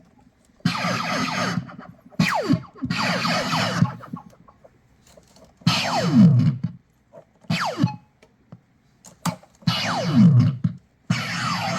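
Circuit-bent toy laser sword's electronic sound effects played through an amplifier: a string of distorted buzzing bursts, each up to about a second long with short gaps between, several sweeping down in pitch.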